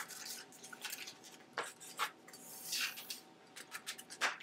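Rattan reed lashing and the woven basket being handled: irregular small clicks and creaks with short rubbing swishes of the reed against the rim, one longer rub about halfway through.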